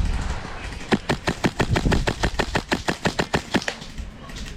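Airsoft gun firing on full auto, a rapid even string of shots at about eight a second, starting about a second in and stopping shortly before the end.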